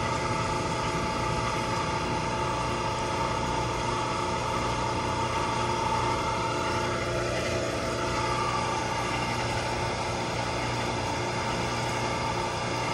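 Steady machinery hum made up of several steady tones, holding unchanged in pitch and level.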